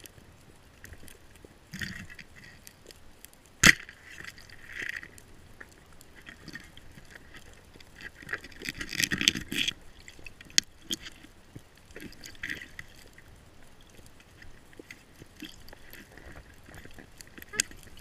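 Underwater knocks and clicks of a speargun and its spear shaft against rock, with short rushes of water noise. One sharp, loud knock comes about three and a half seconds in, and smaller clicks are scattered through the rest.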